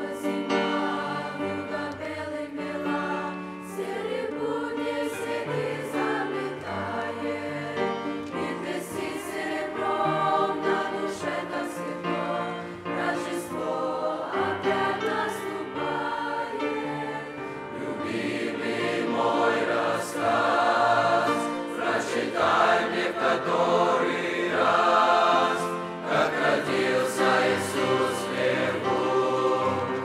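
Teenage mixed choir singing a Russian-language winter song, growing fuller and louder a little past the middle.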